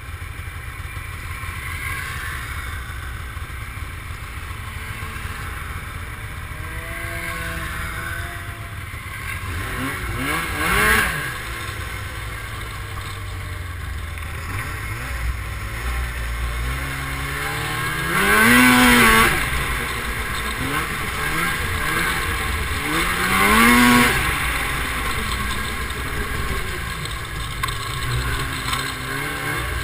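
Snowmobile engines on the move: a steady low rumble, with engine pitch rising and falling in loud swells as the sleds rev, about four times, the loudest at around 19 and 24 seconds.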